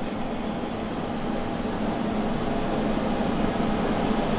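Steady mechanical hum with an airy hiss and a low droning tone.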